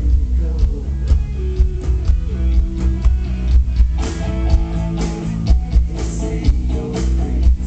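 Rock band playing live, with strummed guitars over heavy low bass and frequent drum hits, and no singing in this stretch.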